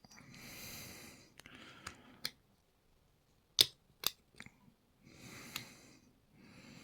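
Sharp little metal clicks and scraping as tools work the retaining clip off a picked lock cylinder, with a few soft breaths between.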